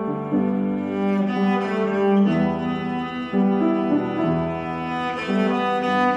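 Cello bowing a slow, smooth melody in sustained notes, with piano accompaniment.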